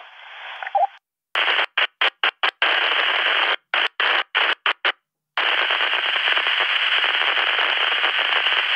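Walkie-talkie receiver audio breaking up. A weak, garbled transmission fades in the first second, then the squelch opens and shuts in rapid choppy bursts, and from about five seconds in there is a steady hiss of static: a signal too weak to get through.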